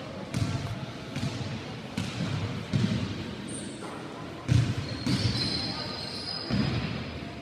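A basketball bouncing on a wooden gym floor: a string of thuds about one a second, with a longer pause midway. Each bounce echoes in the large hall.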